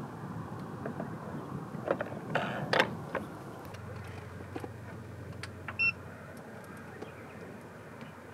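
A power plug is pushed into the AC outlet of an EcoFlow RIVER Pro portable power station with a few sharp clicks and knocks. A low steady hum then sets in as the unit starts supplying power, and a short electronic beep sounds a few seconds later.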